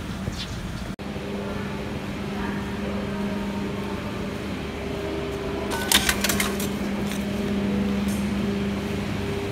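A steady low hum with a quick clatter of clicks about six seconds in, as a paper ticket is fed through an automatic ticket gate.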